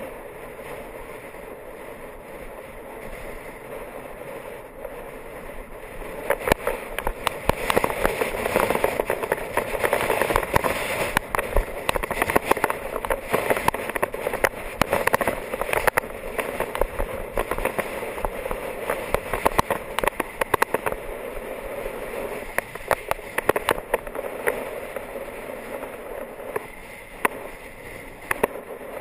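Wind rushing over the microphone of a road bike rider on a windy descent, with tyre noise on the tarmac and many sharp crackles. It grows louder about six seconds in and eases off in the last few seconds.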